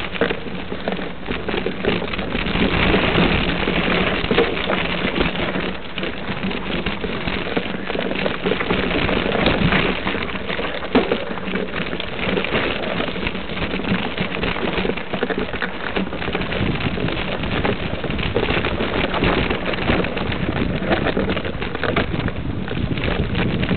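Mountain bike riding up a dirt trail strewn with loose gravel: the tyres roll over the stones with a steady crackling rumble that goes on without a break.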